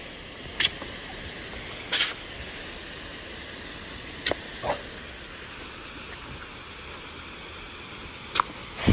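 Pistol-grip garden hose nozzle spraying a jet of water with a steady hiss, with a handful of short, sharp snaps standing out over it.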